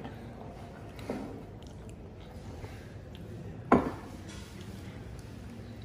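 Coffee cups and teaspoons clinking against saucers on a table: a soft knock about a second in and a louder, sharper clack near four seconds.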